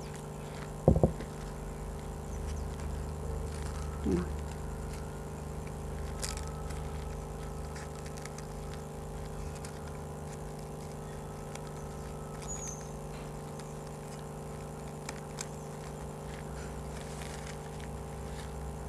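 A steady background hum made of several steady tones, with a single sharp knock about a second in and a few faint clicks and taps later.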